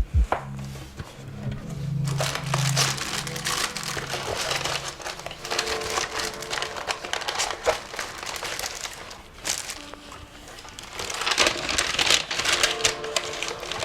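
Packaging crinkling and rustling as a box's contents are unwrapped by hand, with background music carrying low bass notes through the first few seconds.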